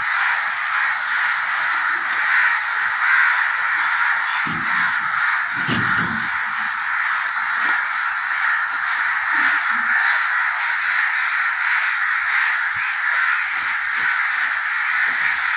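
A dense, unbroken din of many birds calling at once, as from a large flock close by.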